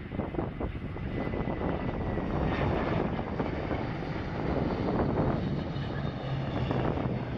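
Airliner's engines running steadily as the aircraft moves past, with a faint high whine in the first couple of seconds.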